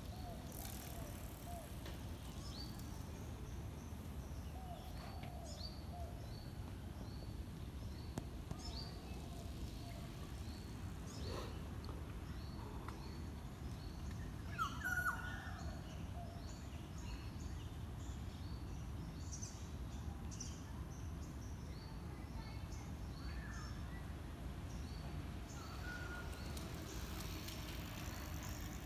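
Outdoor background noise, a steady low hum, with faint high bird chirps scattered throughout and one slightly louder call about fifteen seconds in.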